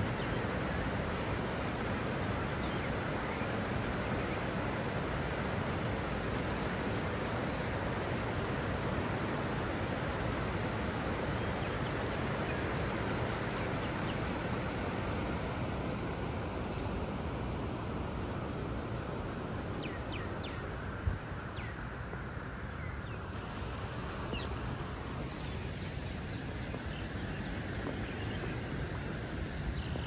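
Water rushing steadily over a low stone weir in a river, a constant even wash of noise. A short knock sounds once, a little after two-thirds through.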